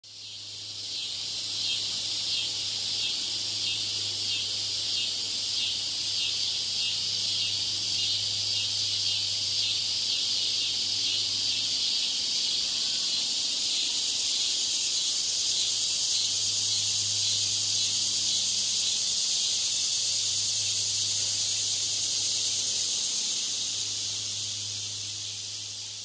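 Cicada singing: a loud, high-pitched buzzing drone that pulses rapidly for the first several seconds, then runs on as a continuous buzz, fading in at the start and tapering off near the end.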